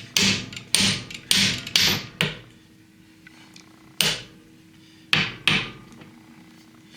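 Hammer blows driving a cylinder sleeve down into a Ford 8N tractor's engine block. Five sharp strikes come about half a second apart, then after a pause of nearly two seconds three more. The sleeve is a tight fit.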